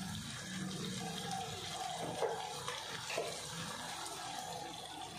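Chicken fry cooking in oily gravy in a pan on the stove, sizzling and bubbling steadily, with a few faint ticks.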